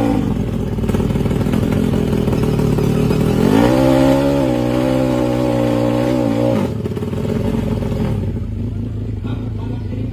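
450cc DOHC drag-bike engine running low, then revved up about three and a half seconds in. It holds high revs for about three seconds and drops off abruptly, settling back to a low idle.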